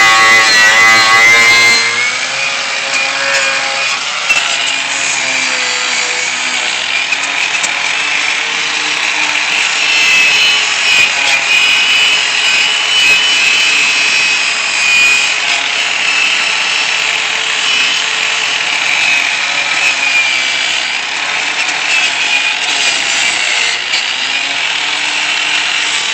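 Electric angle grinder running against metal, stripping the surface down to bare metal: a steady grinding rasp with a high whine. It starts about two seconds in.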